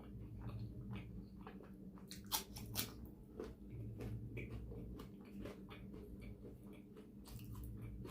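Close-up chewing and wet mouth sounds of a person eating rumali roti with curry, with many small clicks and two sharper ones a little over two seconds in, over a steady low hum.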